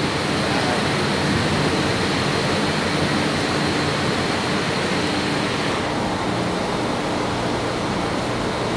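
Steady, loud rushing noise with a low machine hum underneath, the ambience on a ship's deck; it turns a little duller about six seconds in.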